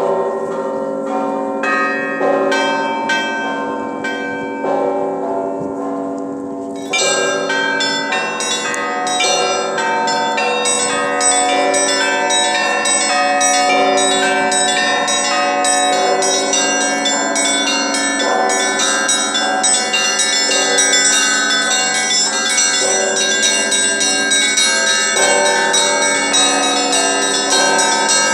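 Russian Orthodox belfry bells rung by a bell ringer: small and medium bells struck in quick repeating patterns over the sustained hum of larger bells. About seven seconds in the ringing suddenly grows louder and brighter and stays full to the end.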